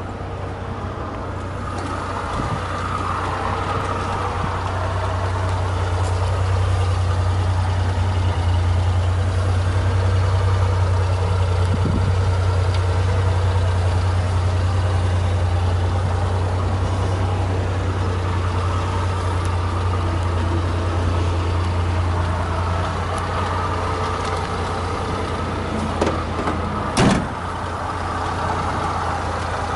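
Suzuki Carry kei truck's engine idling steadily, with a sharp knock near the end.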